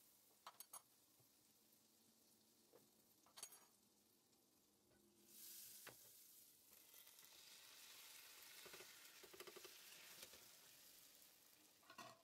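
Butter sizzling in a hot frying pan as a yufka börek is fried. A few light knocks come first; about five seconds in the sizzle swells suddenly and keeps going for several seconds.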